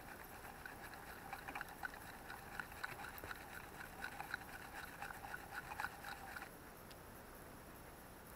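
Faint, irregular ticking and crackling of handling at a wire cage trap, a gloved hand working a wooden board against the mesh; it stops abruptly about six and a half seconds in, leaving a faint steady hiss.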